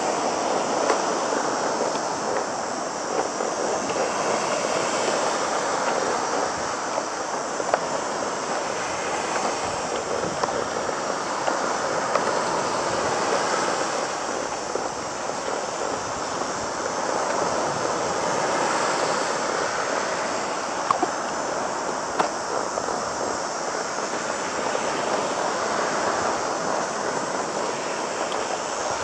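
Sea water sloshing and splashing steadily around a windsurf board being paddled, with a few small knocks now and then.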